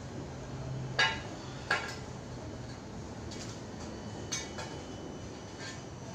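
Tile-setting work: hard objects clink sharply against each other three times, twice close together about a second in and once more, fainter, past the middle, over a low steady hum.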